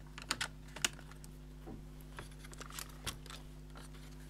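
Light plastic clicks and taps from handling and fitting the parts of an IBM ThinkPad 600X laptop: a quick cluster of clicks in the first second, then scattered softer ones.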